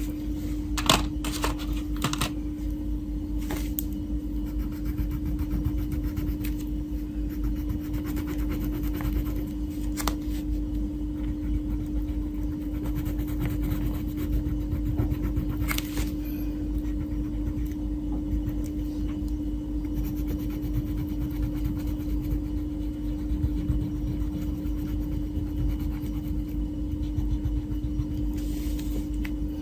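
Wax crayon rubbing and scraping on paper in short strokes as a leaf and stem are coloured in, over a steady low hum, with a few light taps.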